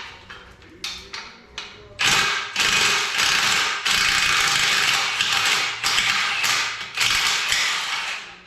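Handheld power tool on a motorcycle frame, first in a few short trigger pulls, then running for about six seconds with brief dips, typical of a powered ratchet or driver working a fastener.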